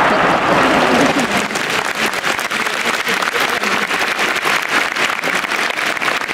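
Large stadium crowd applauding, a dense patter of many hands clapping that takes over from a steady rushing noise about a second in.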